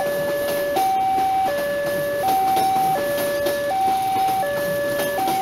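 Railway level-crossing warning alarm sounding its two-tone electronic signal, switching between a higher and a lower tone about every three-quarters of a second, over the rumble of a passenger train passing over the crossing.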